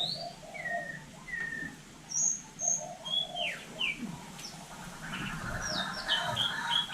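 Hill myna whistling: a rising whistle, several short clear whistles at different pitches and a falling one, then from about five seconds in a rapid buzzy chatter with more whistles over it.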